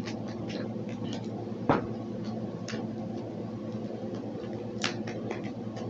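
A steady low hum with a few scattered sharp clicks, the clearest one about two seconds in and another near the end.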